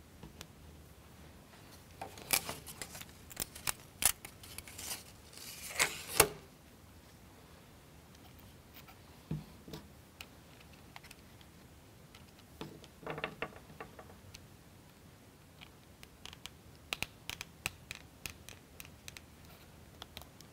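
Laser-cut plywood model-kit parts being handled and fitted by hand: scattered light clicks and knocks of wood on wood. A louder scrape comes about six seconds in, and a quick run of rubbing strokes near thirteen seconds.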